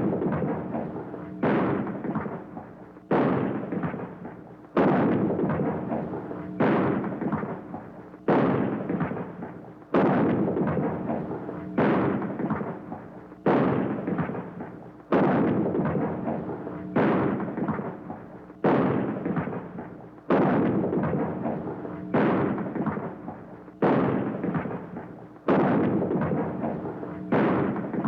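Shotgun firing single shots at a steady pace, a little under two seconds apart, each shot ringing off in a long echoing tail that fades before the next.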